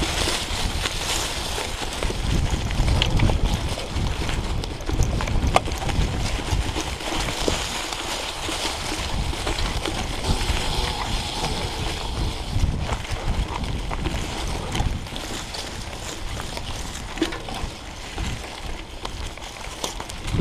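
Mountain bike ridden over a leaf-covered dirt trail: tyres rolling over dry leaves and the bike rattling and knocking over bumps, with a fluctuating low rumble of wind on the microphone.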